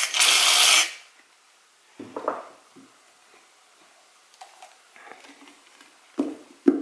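Aerosol foam can spraying foam into a plastic bowl, a steady hiss that cuts off just under a second in. After that come only small handling sounds, and a voice starts near the end.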